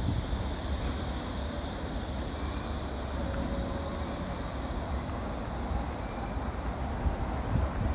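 Steady traffic noise, a continuous hiss and rumble, with low wind rumble on the microphone and a loud gust thumping the microphone right at the end.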